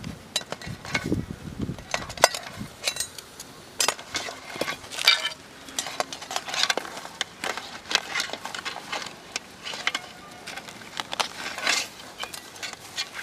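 Perforated metal skimmer clinking and scraping against a metal pot as a large crab is stirred in boiling water, with many irregular clicks and knocks.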